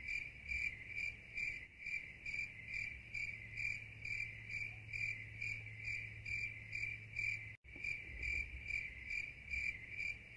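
Cricket chirping steadily, about two to three evenly spaced high chirps a second, with a brief cut-out about three-quarters of the way through.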